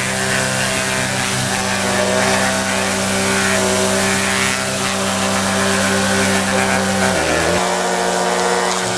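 Pressure washer running steadily: a constant motor-and-pump note under the hiss of the water spray. About seven seconds in, the machine note briefly dips and changes, then runs on.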